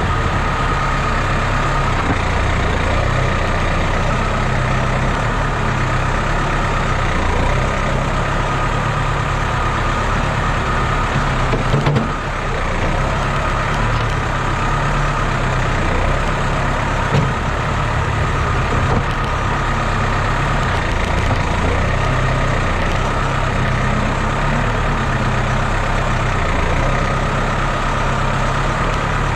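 Tractor engine running steadily while it powers a front loader digging and lifting manure, with a single knock about twelve seconds in.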